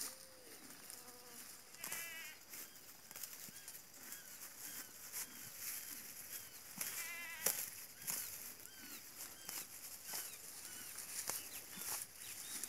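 Two quavering, high-pitched animal calls, one about two seconds in and one about seven seconds in, over scattered small chirps. Between them comes the crackle of a horse tearing and chewing dry grass.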